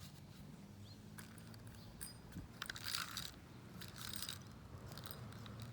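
Push-button spincast fishing reel being cranked: a faint mechanical whirring with repeated bursts of clicking.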